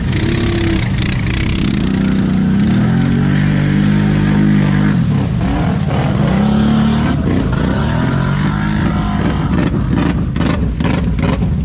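ATV engine revving hard and repeatedly, its pitch climbing and dropping again as the throttle is worked through a mud hole, with a quick run of crackles near the end.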